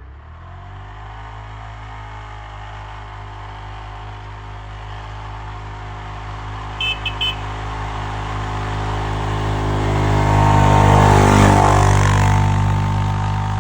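ATV engine running steadily, growing louder and peaking about three-quarters of the way through, then easing off slightly. Three short high beeps sound about halfway.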